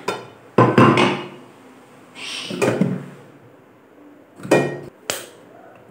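Several separate knocks and clunks as whole sweet potatoes are dropped one at a time into an aluminium pressure cooker pot and the pot is handled on the counter.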